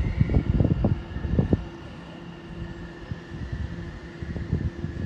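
Wind buffeting the microphone in uneven gusts, heaviest in the first second and a half, over a faint steady whine.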